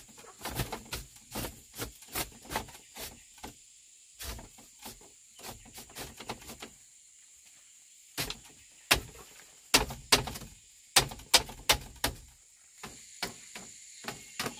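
Irregular sharp knocks and taps of hands-on work with wood, a few a second, pausing briefly about seven seconds in and growing louder afterwards.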